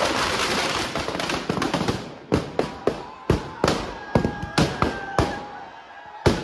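Firecrackers bursting in a burning Ravan effigy: a dense rapid crackle for the first two seconds, thinning into separate sharp bangs, about ten of them, that grow fainter.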